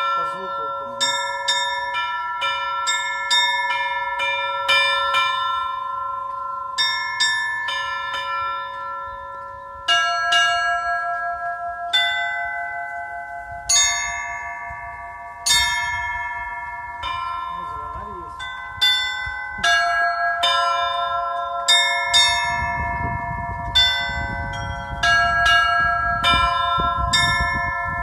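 Russian Orthodox church bells rung by hand: several bells of different pitches struck in an irregular, continuous pattern, each stroke ringing on and overlapping the next.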